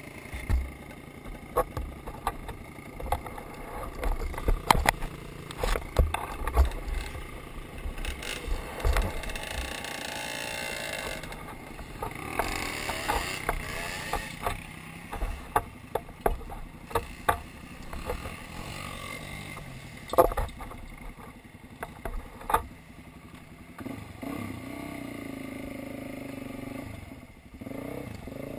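Dirt bike engine running at trail speed, heard from the rider's helmet, with frequent sharp knocks and clatter from the bike jolting over the rough trail, most of them in the first half.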